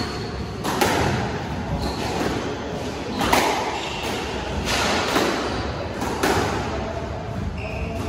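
Squash rally: the hollow rubber ball being struck by rackets and rebounding off the court walls, a sharp thud roughly every second to second and a half, with a steady background of hall noise.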